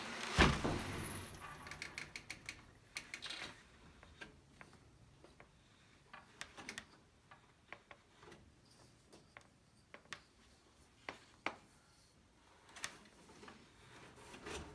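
Hand weaving at a wooden floor loom: a loud knock about half a second in, then scattered light clicks and taps as the weaver works the weft into the warp, thickest in the first few seconds.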